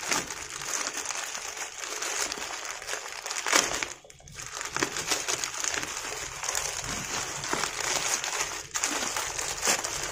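A plastic courier mailer bag being torn and pulled open by hand, with the film crinkling and crackling throughout. There is a short lull about four seconds in.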